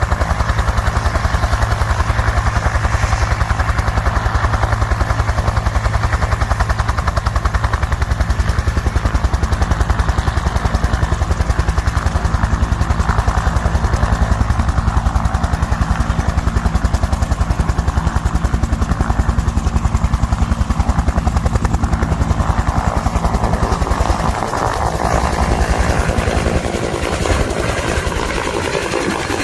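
Helicopter close by, its rotor beating fast and steadily. About three-quarters of the way through the beat weakens and the sound drops a little.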